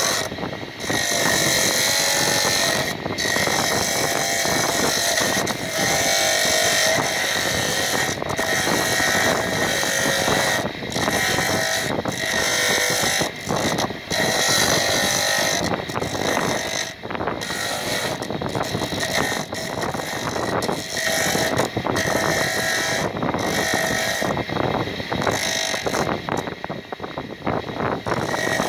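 Motor-driven circular saw blade cutting and grinding a block of rock salt: a harsh, steady rasp over a constant whine, dropping away briefly every few seconds as the block comes off the blade.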